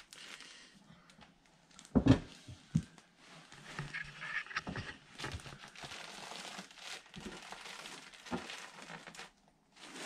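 Crinkling and rustling of insulation being handled and wrapped around a metal dryer vent, with a sharp knock about two seconds in and a smaller one just after.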